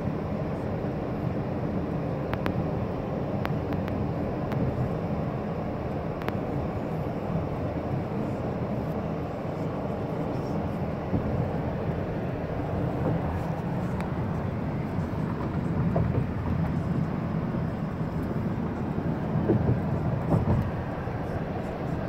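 Steady car road and engine noise heard from inside the cabin while driving at speed, a low even rumble with a few faint ticks in the first few seconds.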